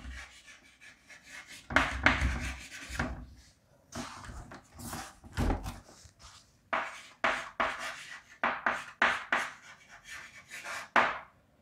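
Hand writing and drawing: a pen or marker making a series of short, irregular scratchy strokes on the writing surface, with a few soft taps.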